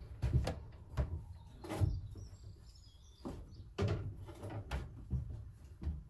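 Irregular knocks and thumps of handling and moving about in a wooden pigeon loft, with a faint high bird chirping about halfway through.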